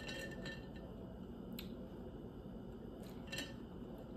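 Faint sipping through a reusable straw from a stainless steel tumbler, with a few light clicks and clinks as the straw knocks against the cup: a cluster near the start, then single ones about a second and a half and about three seconds in.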